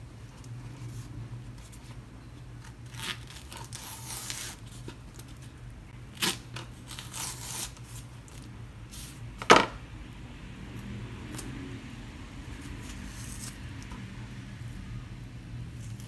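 A kitchen knife cuts and peels saba bananas on a wooden cutting board: rustling and tearing of banana peel, with a few sharp knocks of the blade on the board, the loudest about nine and a half seconds in. A low steady hum runs underneath.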